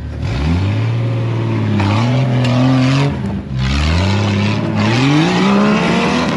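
Off-road vehicle's engine revving hard three times, the pitch climbing and then dropping back between each push, with a rough rushing noise over the engine.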